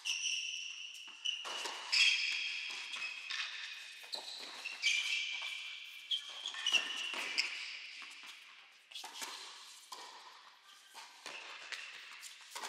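Tennis rally on an indoor hard court: sharp racket strikes and ball bounces at irregular intervals, ringing in a large hall, mixed with short high-pitched sneaker squeaks on the court surface.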